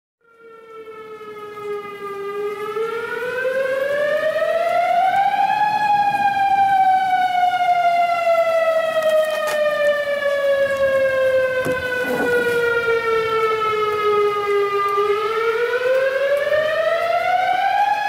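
Outdoor civil defense warning siren sounding a wail. It grows louder over the first few seconds, and its pitch rises over about three seconds. It then falls slowly for about ten seconds and rises again near the end.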